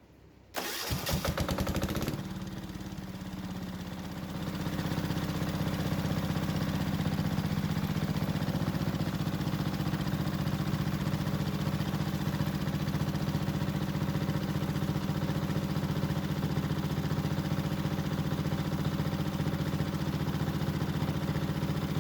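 Wen D6000 diesel generator engine being cranked for about a second and a half, catching, then picking up speed about four seconds in and running steadily. It runs loud because its exhaust is off.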